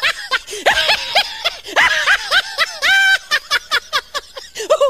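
High-pitched human laughter: a long run of quick 'ha' pulses, several a second, with one longer held note about three seconds in.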